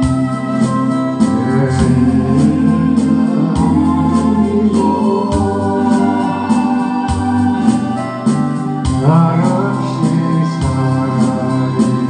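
Electronic organ playing a song accompaniment in held chords over a steady beat.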